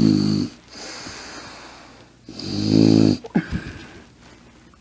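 A man making low, hissy noises with his mouth pressed into his cupped fist. One ends about half a second in, and a louder one comes about two and a half seconds in, with softer breathing between them.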